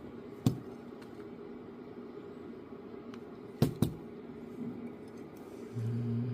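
Soldering tools at work on a small metal connector: a few sharp clicks, one about half a second in and two close together near the middle, over a steady low hum, with a short low drone near the end.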